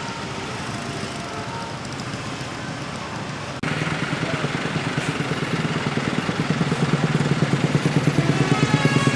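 Vehicles in a traffic jam, with engines running. An abrupt cut about three and a half seconds in brings a louder, closer engine with a fast low pulsing.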